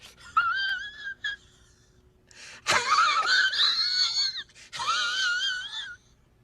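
High-pitched, wavering squeals in several bursts, a wheezing, wailing sound effect. There are a few short squeaks first, then two longer, louder stretches with a quick wobble in pitch.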